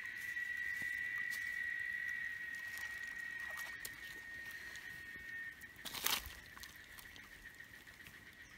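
A steady high-pitched drone fades about halfway through. Over it come light rustles and clicks from a plastic bag and seasoning packets as raw fish are handled, with one sharp click about six seconds in.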